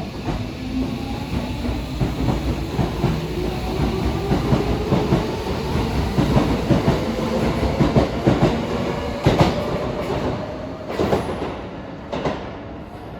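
Electric commuter train pulling out of the station. The motor whine climbs steadily in pitch as the train gathers speed over clattering wheels, and the sound fades near the end as it moves off.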